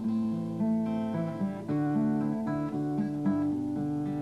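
Solo acoustic guitar, played with separate plucked notes and chords: the instrumental introduction to a folk ballad before the singing begins.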